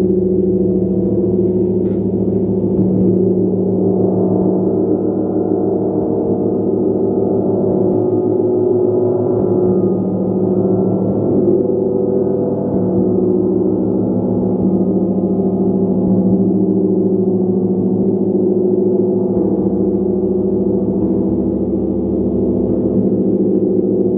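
Gong played continuously, a loud, steady sound of many overlapping tones whose mix of pitches shifts every few seconds.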